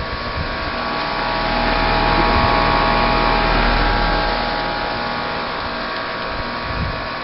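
Bryant Evolution 16 SEER two-stage heat pump's outdoor unit running: a steady fan whoosh with a set of fixed humming tones from the compressor and motor. A low rumble, wind on the microphone, swells from about a second in to about four and a half seconds and is the loudest part.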